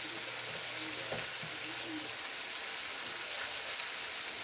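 Cabbage sizzling steadily in olive oil and butter in a skillet over medium-high heat.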